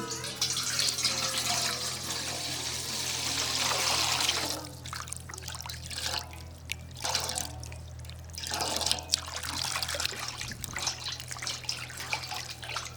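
Water with shampoo pouring steadily for about four and a half seconds, then splashing and trickling in uneven spurts as the foam is worked up.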